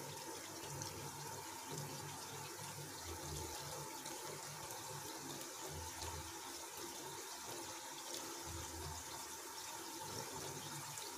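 Samosas deep-frying in a kadai of oil: a steady, gentle sizzle and bubbling with fine crackles, the oil kept only moderately hot.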